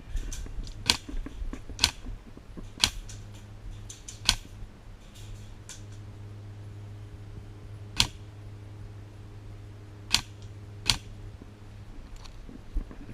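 Airsoft guns firing single shots, about seven sharp cracks at irregular intervals with a few fainter ones between, over a steady low hum.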